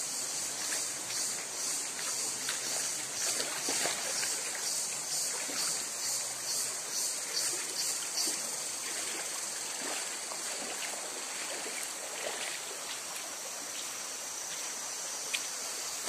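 Shallow stream water running over rock, with a high insect buzz above it that pulses a few times a second at first, then holds steady. There is one sharp click near the end.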